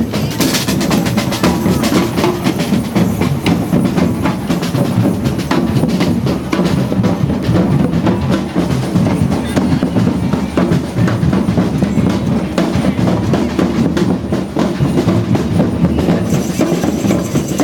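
A drum band playing: bass drums and other drums beating a continuous, dense rhythm.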